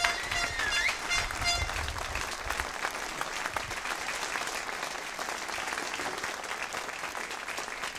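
Crowd applauding steadily, with a brief whistle in the first second or two.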